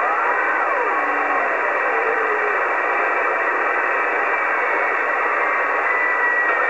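Steady static hiss from a Cobra 148 GTL CB radio receiving an open channel during skip conditions, with whistles gliding up and down in the first second or so and a faint steady whistle near the end.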